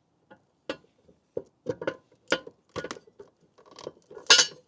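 A run of irregular light clinks and knocks of hard household items being handled and set down, with one louder knock near the end.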